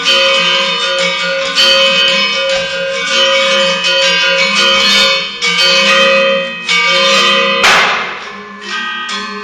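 Balinese gamelan metallophones playing shadow-puppet accompaniment: bronze keys struck in a running pattern with a bell-like ring. Near the end comes a brief, noisy metallic clash.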